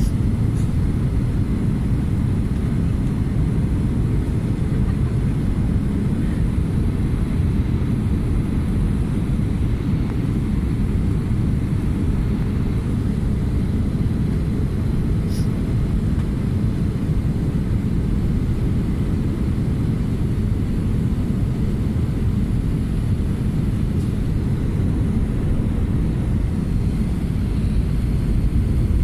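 Jet airliner cabin noise heard from a window seat during the descent to landing: engines and airflow make a steady, unbroken low rumble.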